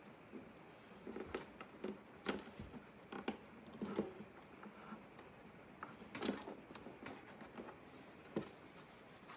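Faint, irregular clicks, taps and short rustles of hands pressing binding strip and blue masking tape onto the edge of a mandolin body.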